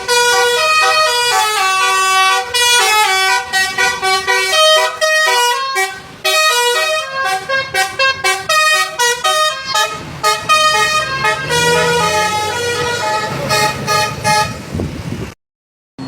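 Tour bus's telolet basuri horn playing a quick multi-note melody, the notes stepping up and down one after another; it cuts off abruptly near the end.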